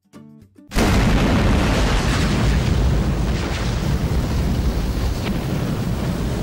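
A few soft plucked guitar notes, then under a second in a sudden loud explosion of fire that rumbles on and slowly fades: a fiery intro sound effect.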